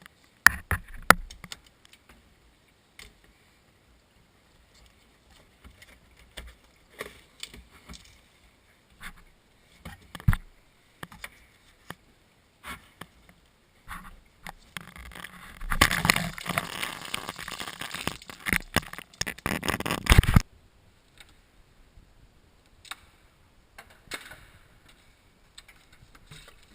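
Scattered metallic clicks, clinks and knocks of hand tools and hose clamps while radiator hoses are taken off a truck's radiator. About two-thirds of the way through comes a few seconds of louder, continuous scraping and rustling that cuts off suddenly.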